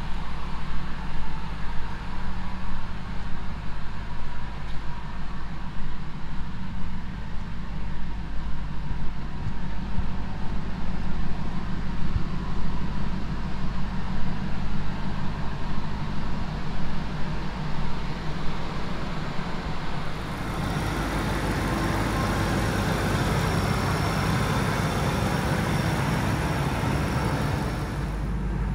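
Ford SVT Lightning's 5.4-litre supercharged V8 idling steadily through its Borla muffler, a low, even rumble. From about two-thirds of the way in the sound turns steadier and brighter, with more hiss and a faint high whine.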